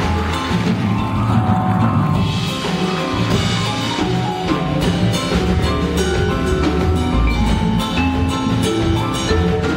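Live jazz-fusion band playing: vibraphone lines struck with mallets over a drum kit groove.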